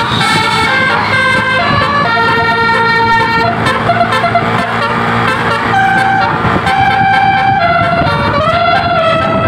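Tour bus telolet horn playing a melody: held horn notes that step up and down in pitch, often several sounding together, over the bus's steady engine rumble.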